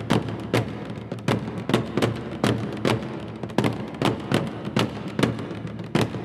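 Korean buk barrel drums struck with wooden sticks in a steady beat of about two strokes a second, each stroke ringing on in a reverberant hall.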